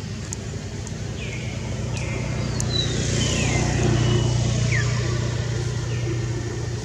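A motor vehicle engine hums, growing louder to a peak about four seconds in and then easing off as it passes. Short, high falling chirps come in over it.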